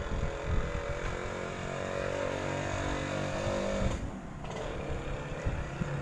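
A motor vehicle engine running with a steady pitch that rises slightly, then stopping abruptly about four seconds in, over a constant low rumble.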